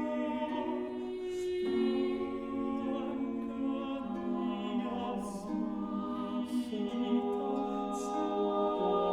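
Four voices singing a Renaissance Italian madrigal in polyphony: held, overlapping notes that shift together every second or two, with hissing 's' consonants cutting through a few times.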